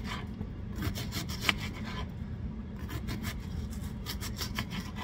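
Kitchen knife dicing a yellow onion, a quick run of crisp cutting strokes through the layers, with a short pause about two seconds in before the strokes resume.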